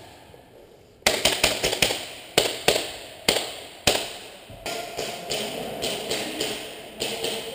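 Airsoft guns firing, with BBs cracking against hard surfaces: a burst of sharp, irregular snaps that starts about a second in, comes thick and fast at first, then thins out.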